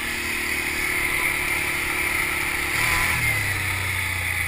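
ATV engine running while riding, its pitch dropping about three seconds in, over a steady hiss of wind and tyres.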